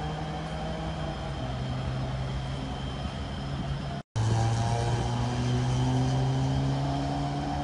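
Steady engine drone of idling road traffic, a low pitched hum with a noisy background. It cuts out for a split second about four seconds in, then carries on.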